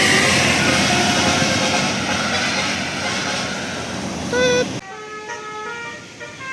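Tour bus and street noise, then a short horn note; after an abrupt cut, a bus's multi-tone telolet musical horn plays a tune of held notes stepping from pitch to pitch.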